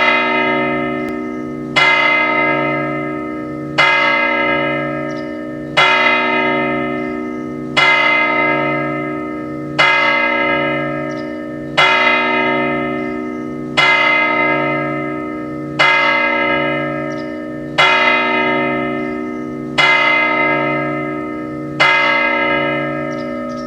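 Tower clock bell striking twelve: twelve strokes about two seconds apart, each ringing on and overlapping the next, the last fading out near the end.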